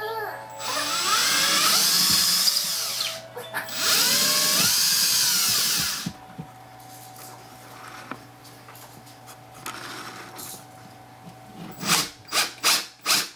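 Electric drill boring a small pilot hole into sheetrock in two runs of about two and a half seconds each, its motor whine rising as it spins up and falling as it stops. Near the end, a quick series of knocks.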